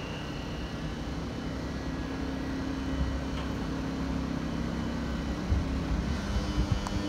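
Railway train running at a station: a steady low rumble with a droning hum, and a few low thumps from about five and a half seconds in.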